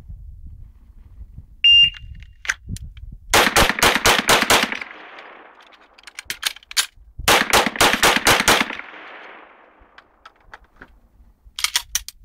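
A shot timer's start beep, then a CZ 75 SP-01 9mm pistol fired in two quick strings of about six shots each. Between the strings is a gap of about two and a half seconds for a magazine reload that the shooter fumbled. A few short sharp clicks come near the end.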